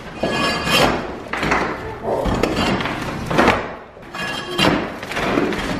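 Flat-bladed floor scraper pushed across a wooden floor in repeated scraping strokes about once a second, with broken plaster and flooring debris clattering ahead of the blade.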